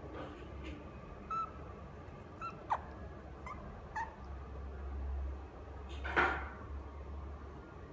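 Maltese × Chihuahua mix puppy giving a series of short, high squeaky whimpers, one of them a quick falling yip. A louder call comes about six seconds in.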